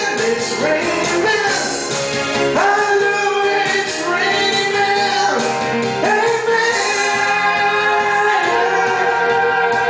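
Karaoke backing music with singing over it, loud and continuous, with sustained, gliding vocal lines.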